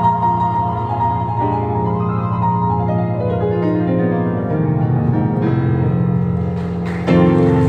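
Grand piano and organ, with violin, playing a slow hymn accompaniment: sustained chords that change every second or so, one long high note held in the first second, and a louder, fuller chord about seven seconds in.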